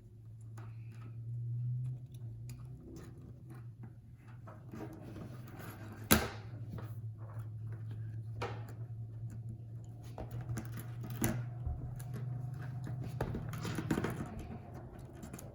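Small taps and clicks of hand tools and parts on an opened iPhone 8 being reassembled, with one sharper click about six seconds in, over a steady low hum.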